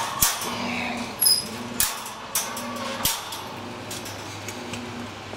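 Scattered sharp clicks and light knocks, about a dozen, over a faint low hum that comes and goes.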